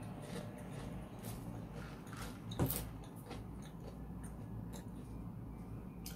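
Close-up chewing of a crunchy fried dumpling: faint scattered crackles, with one sharper, louder crunch about two and a half seconds in, over a steady low hum.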